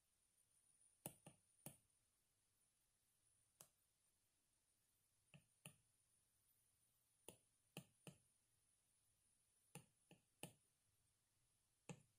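Faint, sharp taps of an Apple Pencil's plastic tip on an iPad's glass screen, about a dozen at irregular intervals, over near-silent room tone.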